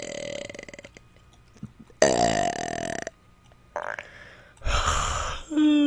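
A woman belching repeatedly on command: a string of loud burps a second or two apart. One tails off at the start, a long one comes about two seconds in, a short one follows near four seconds, and a rough one near five seconds runs straight into a long burp held on a steady pitch at the end.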